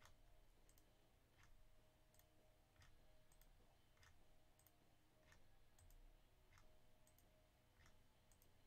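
Faint computer mouse clicks, roughly two a second, over a faint steady hum: the randomize button is being clicked over and over to shuffle a list nine times.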